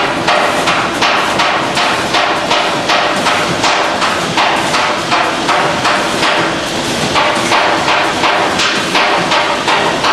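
Automatic bag-packaging machinery on a food packaging line running, with a fast, even clacking of several strokes a second over a steady mechanical din.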